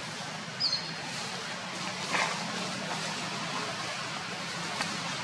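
A long-tailed macaque walking over dry fallen leaves, the leaves rustling and crunching, loudest about two seconds in, over a steady outdoor hiss and low hum. A single short, high, falling chirp comes about a second in.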